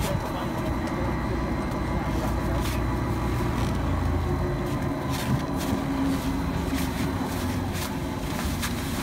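Chairlift terminal machinery running with a steady low hum, and scattered light clicks and clatter over it.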